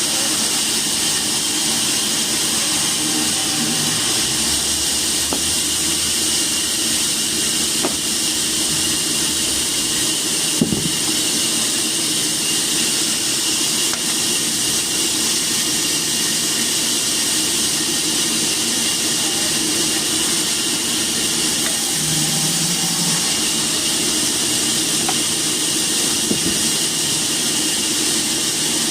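Steady machine noise with a strong, even hiss over a low hum, unchanging throughout, with two short knocks about 11 and 26 seconds in.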